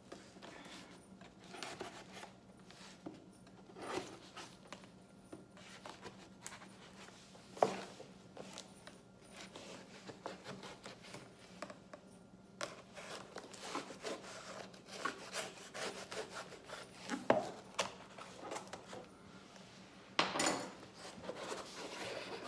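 Steak knife sawing and scraping along the taped seams of a cardboard shipping box: a long run of short, uneven rasping strokes, with a few sharper, louder scrapes.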